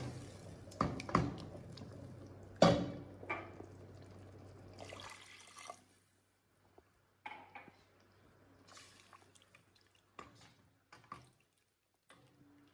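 Water dripping and splashing with a few sharp knocks and clinks, then only faint scattered taps.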